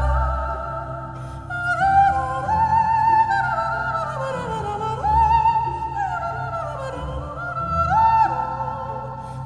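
Soundtrack music: a high operatic voice singing long, sliding, wavering notes over a steady low backing.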